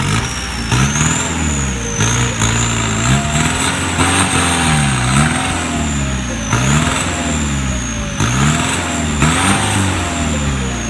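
Off-road vehicle's engine revving up and down repeatedly under load, about once every second or so, with a high whine rising and falling along with the revs.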